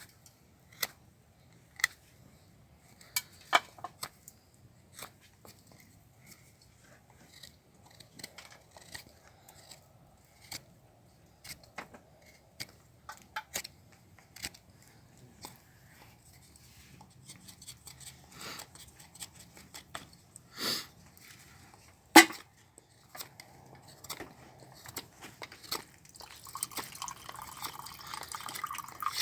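Irregular light clicks and taps, with one sharper knock about three-quarters of the way through and a scraping rustle near the end.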